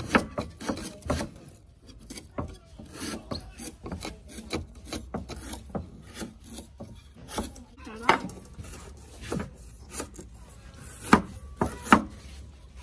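Kitchen knife slicing on a wooden cutting board: irregular taps and scrapes, with a few harder chops near the end.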